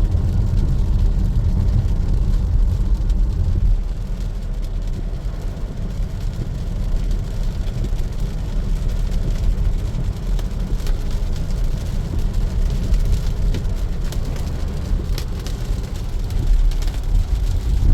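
Steady low rumble of a Tesla Model Y's tyres on a wet road while driving, with no engine sound from the electric car. Faint scattered clicks come through in the second half.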